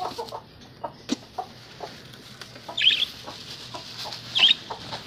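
Chickens clucking, with two short high chirps about three and four and a half seconds in.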